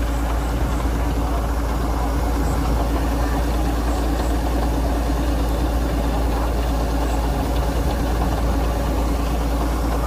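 Kubota DC-105X combine harvester's diesel engine running at a steady, constant speed: an even drone that holds the same pitch and level throughout.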